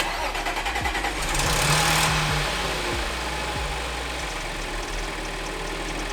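Audi B8.5 S4's supercharged 3.0 V6 starting up, flaring briefly about two seconds in, then settling to a steady idle with a faint rapid ticking over it. It is the first start after a high-pressure fuel pump upgrade.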